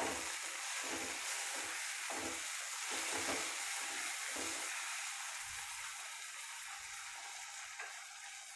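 Chopped onions and tomatoes sizzling in hot oil in a kadai while being stirred with a wooden spatula, the stirring strokes coming about twice a second. After about five seconds the stirring thins out and the sizzle carries on alone, slowly growing fainter.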